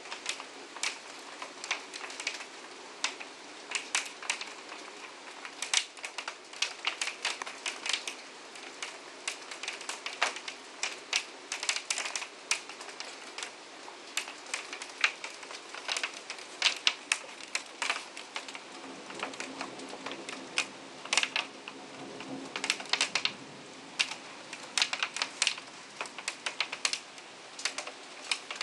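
Heavy rain: large drops tap irregularly and quickly on a hard surface close to the microphone, over a steady hiss of falling rain.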